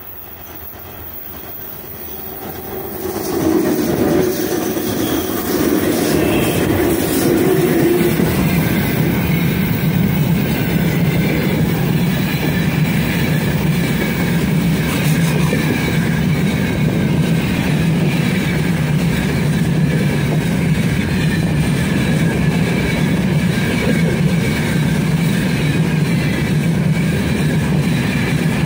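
Freight train hauled by four-section 2ES5K 'Ermak' electric locomotives coming up and passing close by, getting louder until a sudden jump about three seconds in. After that a long line of open freight wagons rolls past with a steady heavy rumble, clickety-clack over rail joints and a faint high wheel squeal.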